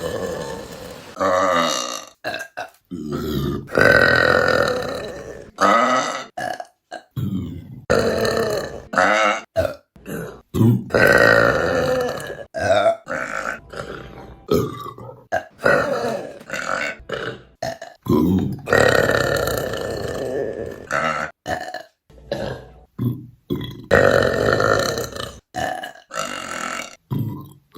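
Women burping, one burp after another with abrupt cuts between them. Some are short, and several are long drawn-out belches of a second or two.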